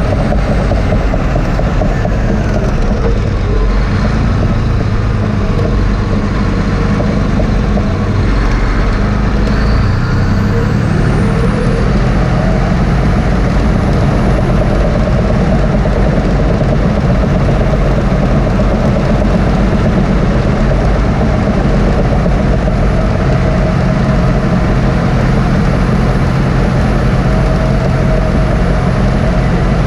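Cat D6T LGP crawler dozer's diesel engine running steadily under load as the blade pushes a load of dirt.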